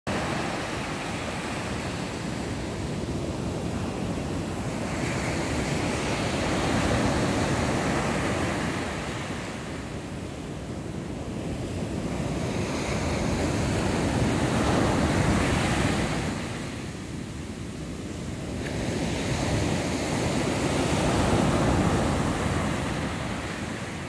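Rough sea surf breaking on a sandy beach after a typhoon, a steady wash that swells with each incoming wave, three times about seven seconds apart, with wind blowing across the microphone.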